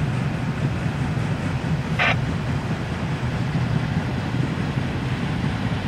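Freight train of autorack cars rolling past steadily: an even, low rumble of steel wheels on rail, with a brief high squeak about two seconds in.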